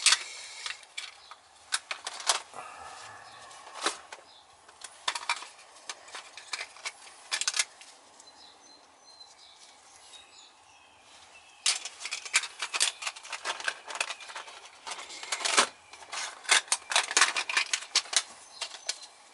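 Small brass faucet seats clinking and rattling in a metal parts case as gloved fingers rummage through them. The clicks come in quick bursts, with a quieter stretch around the middle.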